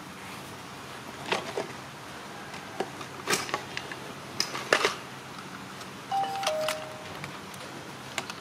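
Scattered sharp clicks and taps, the loudest nearly five seconds in, and a two-note falling chime, ding-dong, about six seconds in.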